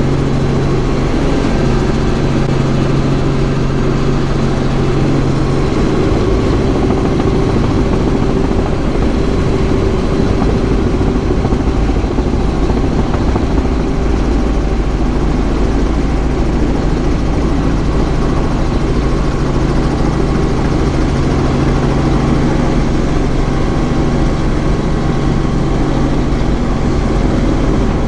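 Robinson R44 helicopter's piston engine and rotors running, a loud, steady drone with a constant low hum.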